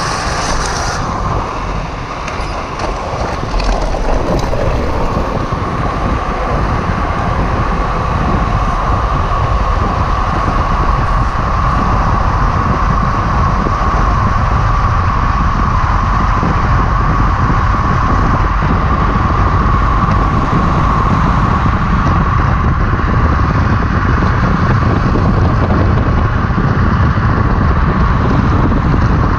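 Drift trike rolling fast downhill on asphalt: wind buffeting the on-board camera's microphone and the rolling noise of the wheels, with a steady high whine. It gets louder a few seconds in and then holds steady.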